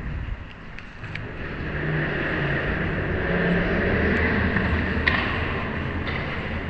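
A vehicle rumbling by, growing louder about two seconds in, with a few sharp clicks.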